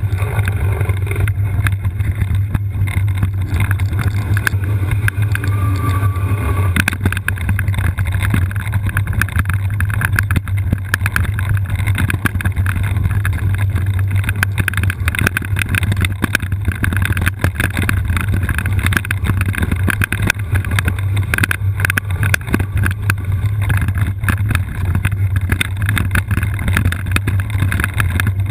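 All-terrain wheelchair rolling down a rough trail: a steady low rumble with many small clicks and knocks from the chair jolting over the ground.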